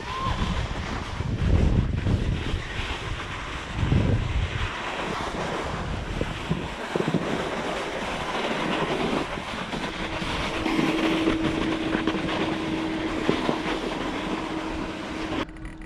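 Snow bike skis scraping and hissing over groomed snow at speed, with wind buffeting the microphone. A steady low hum comes in about ten seconds in.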